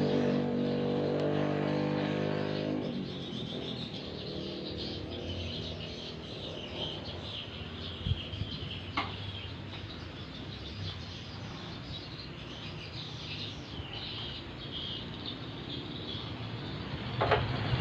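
A steady hum stops about three seconds in. Birds chirping follow, with a couple of sharp clicks.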